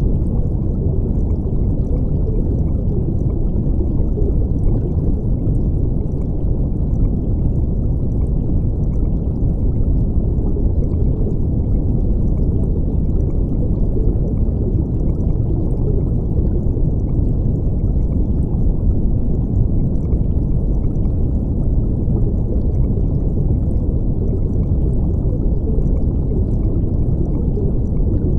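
Steady, muffled rush of water, even and unbroken, with almost nothing in the high end.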